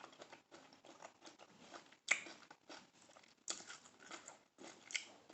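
Close-miked eating of colossal shrimp: soft chewing and biting, with a few sharper clicks about two, three and a half and five seconds in.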